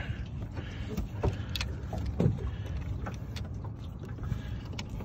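Low steady rumble with scattered light knocks and rustles as a landing net holding a blue catfish is handled on a boat deck.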